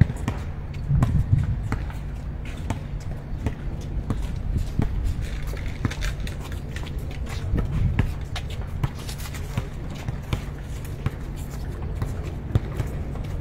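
A basketball being dribbled on a hard court, with players' running and shuffling footsteps and scattered sharp knocks at irregular intervals.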